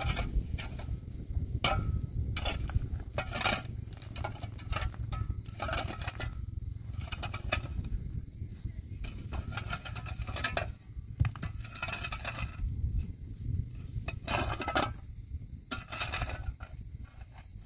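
A metal shovel scraping and digging into stony, gravelly ground in repeated irregular strokes, with stones clinking and knocking as they are moved, over a steady low rumble.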